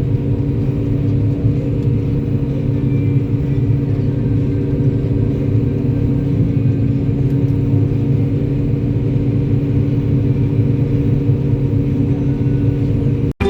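A large engine running at steady speed, a constant low drone that cuts off abruptly near the end.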